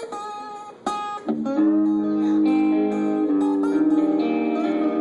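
Guitar played through a PA: a few single picked notes, then strummed chords ringing on from about a second in.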